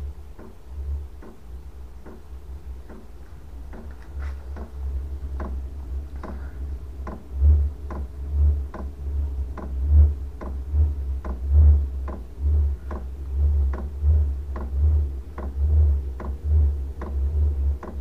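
Chinese diesel heater's fuel dosing pump ticking steadily, roughly two clicks a second, as it feeds fuel during start-up. Under it is a low rumble that grows louder and pulses from about halfway through.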